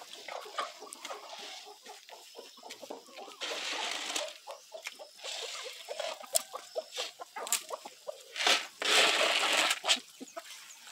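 Chickens clucking, with two longer rushes of noise about four and nine seconds in, the second the louder.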